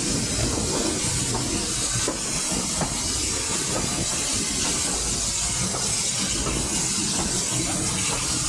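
Heritage railway carriage running along the track, heard from an open carriage window: a steady rumble of the wheels under a loud rushing hiss, with a few faint clicks from the rails.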